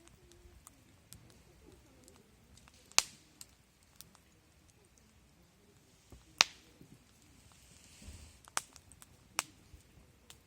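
Wood campfire crackling with scattered sharp pops, the loudest about three seconds in and again past six seconds, and a brief hiss later on.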